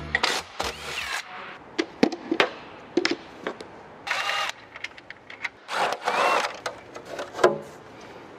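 Cordless drill-driver whirring in several short bursts as it spins fasteners out in the engine bay, with sharp metal clinks of sockets and tools in between.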